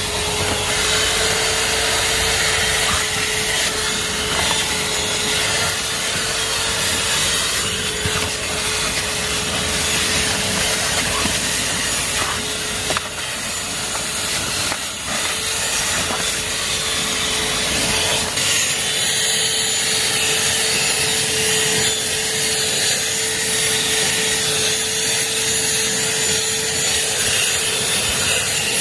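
Shark UltraCyclone Pro cordless handheld vacuum running with a steady whine, its nozzle rubbing and scraping over the car's dirty interior surfaces. It starts abruptly, and the low rumble under it drops away about 18 seconds in.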